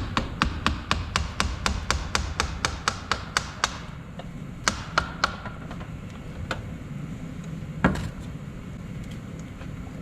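Hammer tapping the unbolted four-wheel-drive actuator on a 2005 Toyota Tundra's front differential to loosen it from the housing: a quick run of about four light taps a second for the first few seconds, then a few scattered strikes, the loudest near the end.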